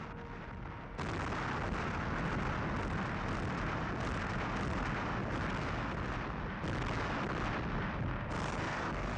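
Battle sounds: dense gunfire and artillery explosions in a continuous barrage of overlapping shots and blasts, getting louder about a second in.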